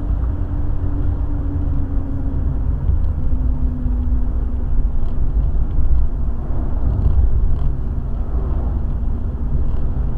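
Steady low road rumble and engine drone inside a car driving along a highway, with a faint engine hum that shifts slightly in pitch. The sound swells a little about six seconds in as an oncoming truck passes.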